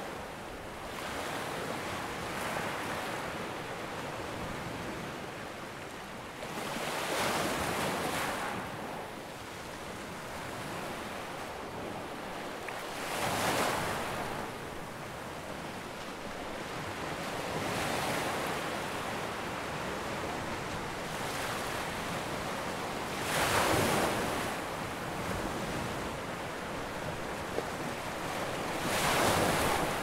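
Ocean surf washing onto a shore: a steady rush of water with waves swelling and breaking about every five or six seconds.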